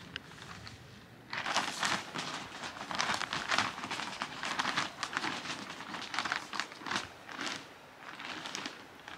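Plastic sacks crinkling and rustling as they are handled, in irregular bursts that begin about a second in and ease off near the end.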